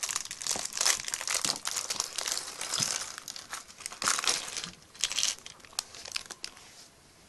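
Small clear plastic bag of LEGO pieces being handled and crinkled in irregular bursts, thinning out and dying away near the end.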